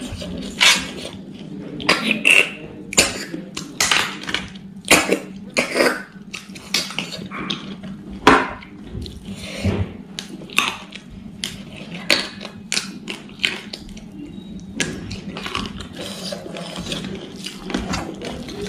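Close-miked eating by hand: fingers mixing rice against a stainless steel plate, and chewing with many quick, irregular crunches and mouth clicks as raw wild eggplants are bitten.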